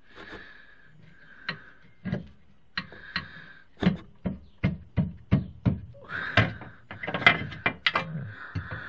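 Hand-work knocks and clunks of metal and wood under a car as a gearbox rear mount is forced into a very tight fit. The knocks are scattered at first, then come in a quick run of about three a second, then turn into a denser clatter near the end.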